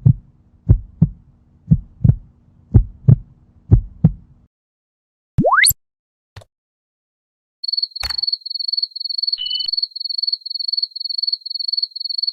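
A string of sound effects. First a heartbeat, low thumps in pairs about once a second over a steady low hum. Then a short, quickly rising whistle and a click. Then a high electronic beeping, about three beeps a second, that runs to the end.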